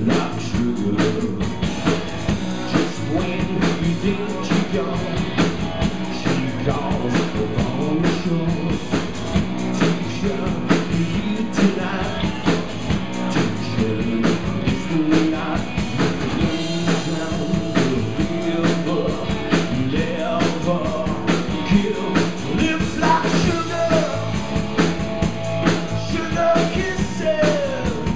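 Rock band playing live: drum kit beating a steady rock rhythm under electric guitars and bass, with singing.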